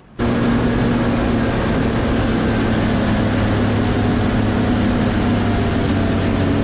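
Bass boat's outboard motor running at speed: a steady engine drone with rushing wind and water noise. It starts abruptly just after the beginning.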